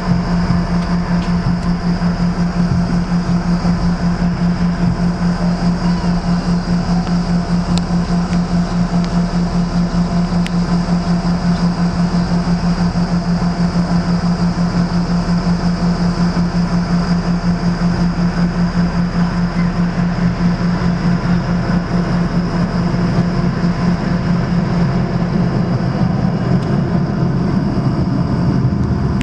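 Cabin noise of an airliner taxiing: the engines run steadily with a strong low hum and a faint high whine, over the rumble of the wheels rolling on the taxiway.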